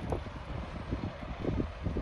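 Wind buffeting the microphone in irregular low gusts, over a steady low outdoor rumble.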